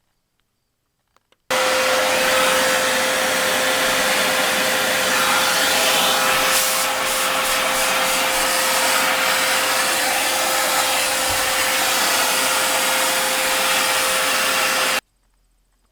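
Dyson Ball Multi Floor upright vacuum cleaner running loud and steady, a full hiss of airflow with one constant whine. It starts suddenly about a second and a half in and cuts off sharply near the end.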